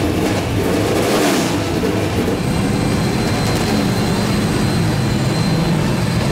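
NASCAR stock car V8 engines running steadily as the cars roll toward the green flag, with a brief swell of noise about a second in.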